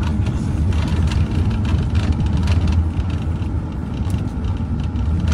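Steady low rumble of a car driving along a road at low speed: engine and tyre noise, with a few faint clicks scattered through it.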